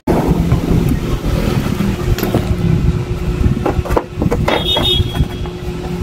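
A steady low rumble with a faint hum, and a run of clicks and a squeak from a hard clear plastic box being picked up and handled about three and a half seconds in.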